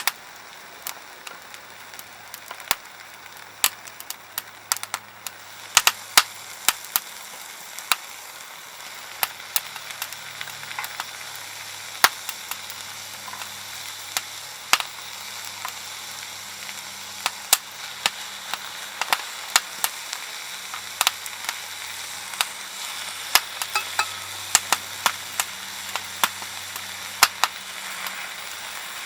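Softwood (conifer) firewood burning, crackling with irregular sharp pops over a steady hissing sizzle.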